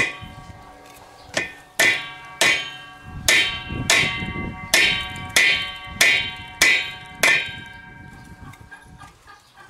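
Hammer blows on a cracked steel farm-implement part, about ten strikes that each ring with a bright metallic tone, knocking the bent piece back so the crack closes up. The blows stop a little over seven seconds in.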